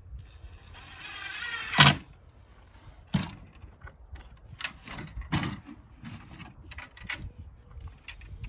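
Metal hinge hardware being handled: a short scraping rasp ending in a sharp snap about two seconds in, then scattered clicks and knocks.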